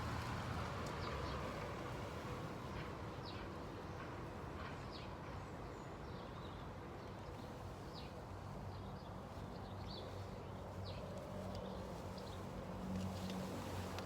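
Outdoor background: a steady low rumble with scattered short, high bird chirps.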